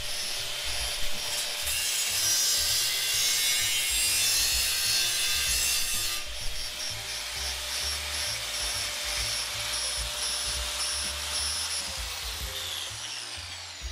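Angle grinder with a thin cut-off wheel cutting through a metal motorcycle rear fender. A steady motor whine runs throughout, with a louder, harsher cutting noise for a few seconds near the start. Near the end the wheel spins down with a falling whine.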